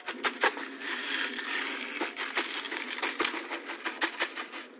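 Dry chicken feed pellets pouring and pattering out of a shaken thin plastic bag into a plastic bucket of feed. The plastic crinkles throughout, over a steady rush of pellets with many small sharp clicks.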